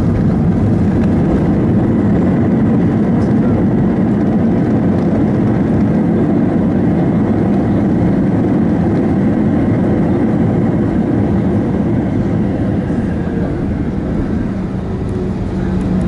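Airbus A320 cabin noise on the ground after landing: a steady rumble of the engines, airflow and wheels with a low hum. The noise eases a little near the end, and a steady low tone comes up.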